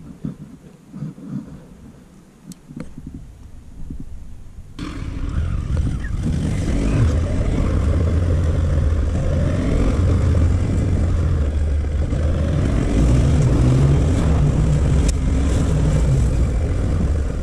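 Motorcycle engine running steadily while the bike rides along a street, with wind and road noise on the bike-mounted microphone. It starts abruptly about five seconds in, after a quieter stretch with a low rumble.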